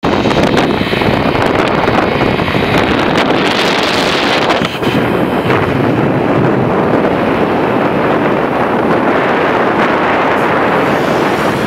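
Loud, steady wind rush buffeting the microphone as it travels at speed on a moving scooter, with road and engine noise blended underneath.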